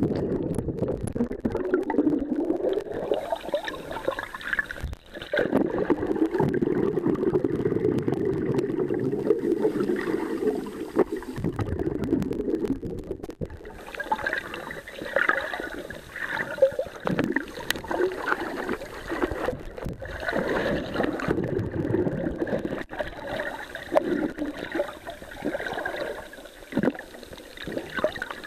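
Water churning and gurgling around a camera held underwater by a swimmer, heard muffled as if from below the surface. A dense, low churn fills the first half; from about halfway the sound turns choppier and more uneven, with sloshing and bubbling.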